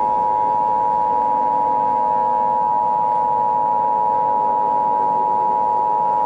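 Emergency Alert System two-tone attention signal: two steady sine tones sounding together, near 853 and 960 Hz, held loud and unchanging throughout, with fainter low steady tones beneath.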